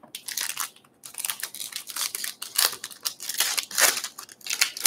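Plastic wrapping crinkling and tearing in quick, irregular rustles as a sealed trading-card box is opened by hand.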